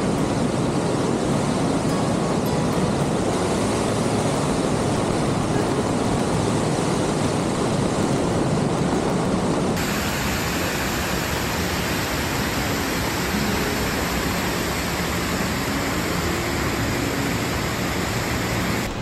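Mountain torrent and waterfall rushing through a narrow rock gorge, a steady rush of water noise that shifts in tone about halfway through.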